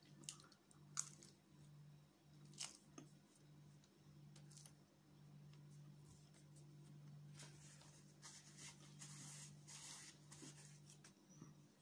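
Very quiet: a low steady hum, a few faint clicks of chewing in the first few seconds, then the soft rustle of a paper napkin as hands are wiped.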